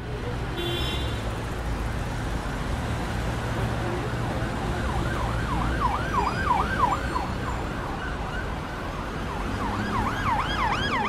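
An emergency-vehicle siren over steady traffic rumble. The siren sweeps quickly up and down, about two to three times a second, from about halfway through and again near the end, then everything cuts off suddenly.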